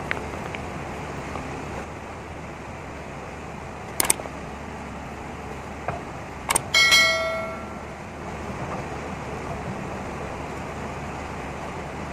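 Steady rushing noise of the river and the working machinery, broken about four and six and a half seconds in by sharp clicks. Right after the second click comes the loudest sound, a short bell ding that rings and dies away within a second: a subscribe-button sound effect.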